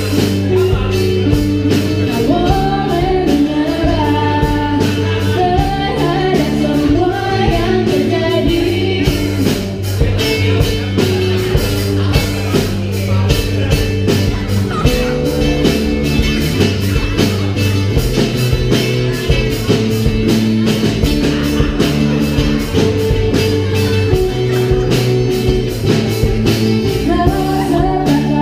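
Live band playing a rock song in an acoustic arrangement: strummed acoustic guitars, electric bass and drums keeping a steady beat. A female voice sings over it for a stretch early on and again near the end.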